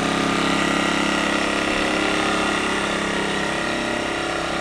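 Earthquake IG800W inverter generator running steadily with its economy mode on, a quiet, even engine hum that holds the same level throughout.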